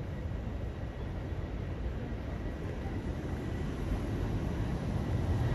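Jet airliner engines running at the airport, heard as a steady low rumble with a faint high whine, growing louder near the end.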